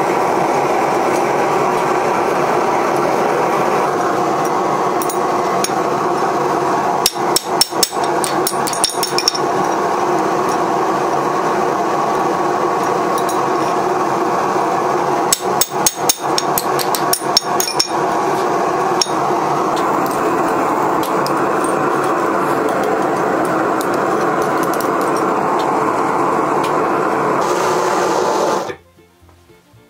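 Gas forge burner running with a steady rushing noise. Two runs of quick hammer blows on a steel punch drive a hole through red-hot flat bar on a swage block, one run about seven seconds in and one from about fifteen to nineteen seconds. The burner noise cuts off suddenly about a second before the end.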